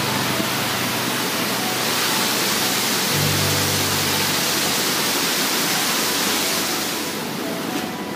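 Steady rush of a waterfall pouring over rock ledges, softening near the end, with soft background music underneath: faint short high notes and two low held notes.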